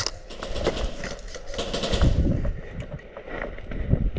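Airsoft guns firing in quick runs of sharp clicking shots, with a loud crack right at the start and a few low thumps in between.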